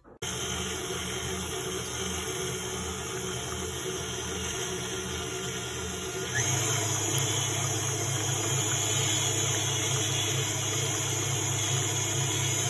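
KitchenAid stand mixer running, its wire whisk beating a liquid mix of hot water, sugar and instant coffee. The motor starts abruptly at the outset, then steps up to a higher speed, louder and higher-pitched, about six seconds in.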